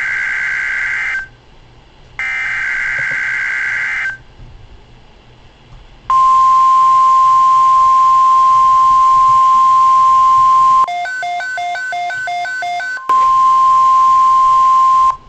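NOAA Weather Radio alert tones: two warbling SAME digital header bursts, a short gap, then the loud steady single-pitch warning alarm tone. About 11 s in, the tone breaks into a quick run of touch-tone beeps, then resumes for about two seconds.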